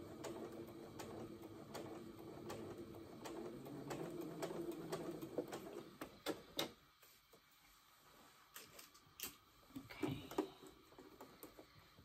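Janome computerized sewing machine stitching slowly in the ditch: a motor hum with a steady ticking of the needle, about two ticks a second. It stops about six and a half seconds in, leaving scattered small clicks and rustles as the fabric is handled.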